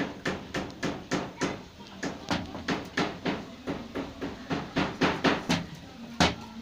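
Rapid, even knocking: a steady run of sharp knocks, about three to four a second.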